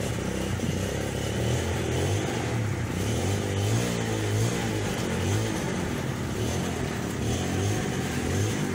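An engine or motor running steadily with a low hum, its pitch rising and falling slightly.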